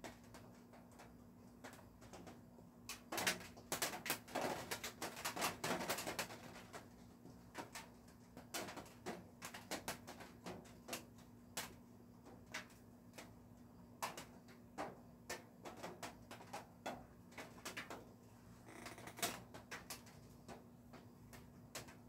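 Raindrops hitting the studio roof: faint, irregular single taps about one or two a second, with a dense flurry of taps a few seconds in and a shorter one near the end, over a faint steady hum.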